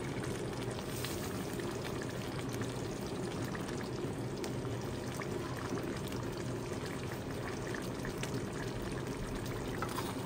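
Pot of yam chunks boiling steadily in water on the stove.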